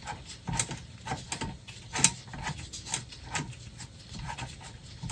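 Irregular crackling and popping with a low hum from a 1936 Zenith 6S27 tombstone radio's speaker as it is tuned between stations.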